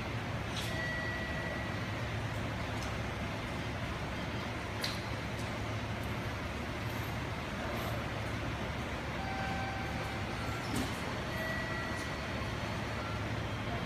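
Diesel railcar idling, a steady low engine hum under even mechanical noise, with a few faint clicks.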